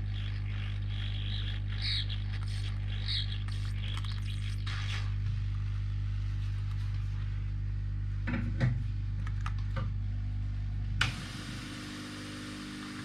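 Hot air gun running with a steady low hum while the LCD ribbon is heated for desoldering, with a few light scrapes and clicks of tools on the board. The hum cuts off suddenly about eleven seconds in.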